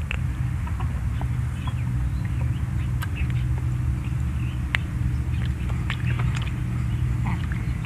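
Children eating soft berries by hand: faint scattered clicks and mouth smacks over a steady low hum.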